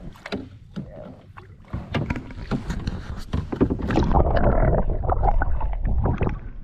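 Knocks, scrapes and rustling in a canoe as a hooked bass is brought in. About two seconds in they grow into a loud, dense stretch of thrashing and knocking that lasts some four seconds.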